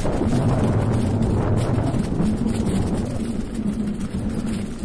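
A motor running with a steady low hum that wavers slightly in pitch, fading near the end.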